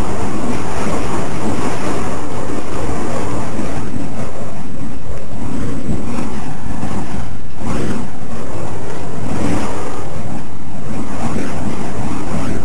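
Loud, steady rushing noise of wind buffeting the microphone, with no clear rhythm, drowning out any whoosh of the burning fire poi being spun.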